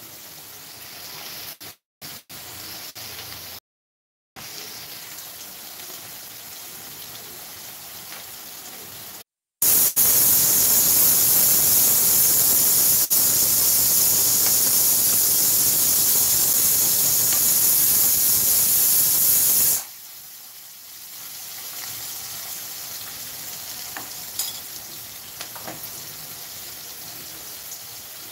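Bitter gourd slices frying in oil in an iron kadai: a steady sizzle that cuts out briefly a few times in the first ten seconds, then turns much louder and harsher for about ten seconds in the middle before settling back.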